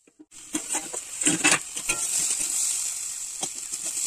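Diced vegetables sizzling in oil in an aluminium kadai, a steady hiss, while a metal spatula scrapes and clicks against the pan as they are stirred. It starts suddenly a moment in.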